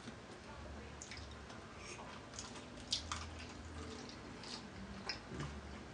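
Quiet wet eating sounds from a seafood boil: food being handled, bitten and chewed, with scattered small clicks and squishes.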